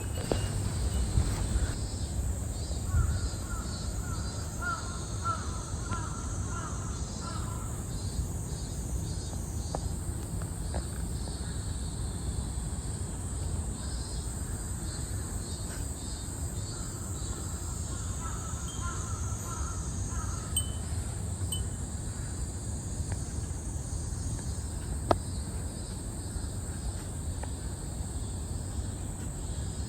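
A crow cawing in two runs of repeated calls, about two seconds in and again around seventeen seconds in, over a steady high insect drone and a low rumble of wind.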